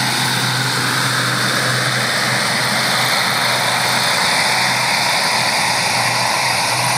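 ATR 72-600 turboprop's Pratt & Whitney PW127-series engines and propellers running steadily as the airliner taxis past at close range, a steady low propeller drone under a high engine whine.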